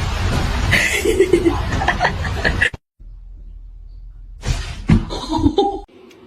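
Human laughter and chuckling over a steady rushing noise, which cuts off abruptly partway through; then a quieter hum with a few sharp knocks and short vocal sounds.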